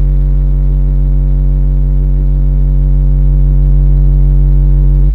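Custom 12-inch car subwoofer playing a steady 47 Hz test tone at about 138 dB inside the car's cabin, with the door cracked slightly, during an SPL meter run. It cuts off suddenly right at the end.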